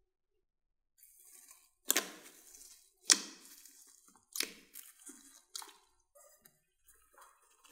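Glossy slime topped with foam beads squished by hand in a glass dish: four sharp wet squishes about a second apart, each trailing off, followed by softer ones.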